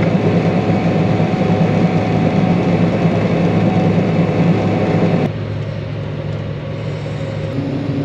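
John Deere combine harvester running steadily while threshing barley, a constant low hum under a broad mechanical rush. About five seconds in the sound drops suddenly to a quieter, duller hum, and a faint steady tone joins near the end.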